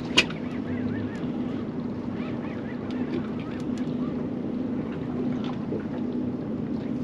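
Outboard motor running slowly with a steady hum, a sharp knock just after the start, and faint high chirps and ticks scattered over it.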